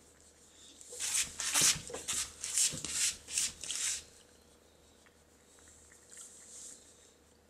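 Cat chewing food close up: a quick run of about eight short chewing sounds over some three seconds, then a few fainter chews near the end.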